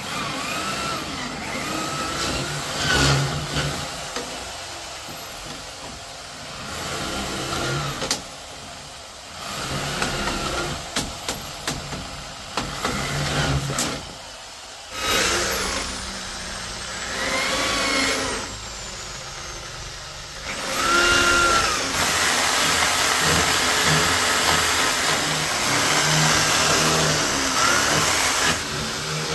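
A small motor revving up and down in short runs, over and over, its whine rising and falling each time; near the end it runs longer and steadier.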